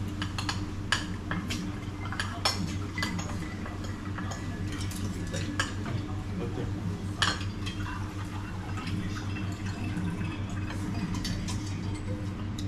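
Tableware clinking at a meal: scattered sharp clicks of cutlery against plates, over a steady low hum. Near the end, water is poured from a metal pitcher into a glass.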